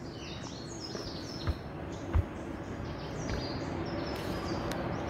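Songbirds singing, a run of short falling chirps, over a steady hum of truck traffic on a nearby highway. Two dull thumps come about one and a half and two seconds in.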